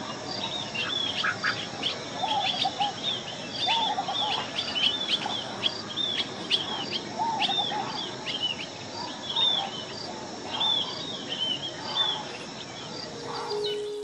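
Birds calling busily: a string of short, sharp high calls several to the second, with a lower chuckling call now and then, over a steady high insect drone.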